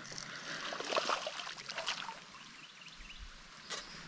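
Water splashing and trickling as a small hooked fish is reeled to the kayak and lifted out, with irregular splashes in the first two seconds that then settle.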